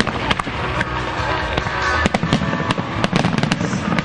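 Aerial fireworks bursting in a string of sharp bangs, thickest from about two to three and a half seconds in, with music playing underneath.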